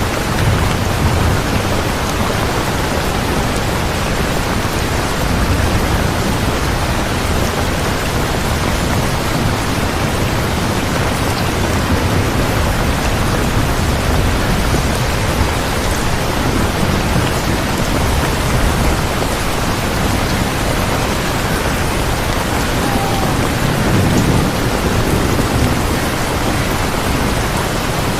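Steady heavy rain, an even wash of noise, with low thunder rumbling up a few times: about a second in, around five seconds in, and near the end.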